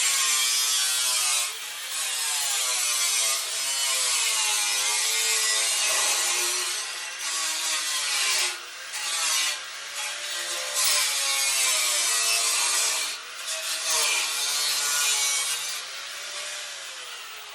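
Angle grinder with a cutoff wheel cutting through the steel tractor frame: a loud, harsh hiss whose motor whine dips in pitch under load and recovers, with a few brief let-ups, then the whine falls as the wheel spins down near the end.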